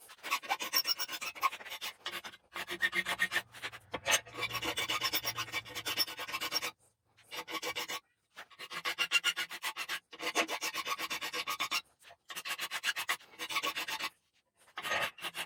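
Hand file rasping back and forth across the steel tip of a coil-spring slot punch, bevelling it to a 45-degree angle. The file runs in quick, even strokes, broken by several short pauses.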